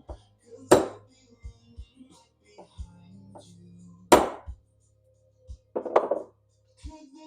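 Sharp hammer blows with a small hammer on a pinball stand-up target assembly, over background music: one strike near the start, another about four seconds in, and a quick flurry of taps about six seconds in.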